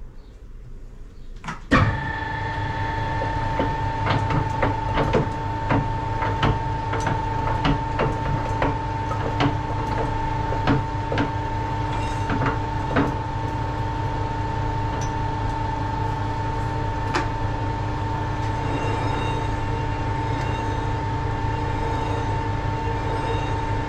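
Metal lathe switched on about two seconds in, then running steadily with a constant whine and hum while a chucked flywheel is spun and clocked with a dial indicator for run-out. Light regular clicks come through the first half.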